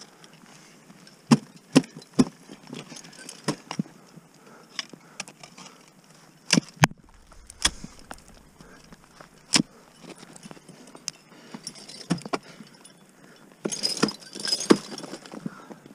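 Ice tool picks and crampon points striking hard water ice in irregular sharp single blows, a few seconds apart, with metal climbing gear clinking. Near the end a quick run of crampon kicks comes with crunching, chipping ice.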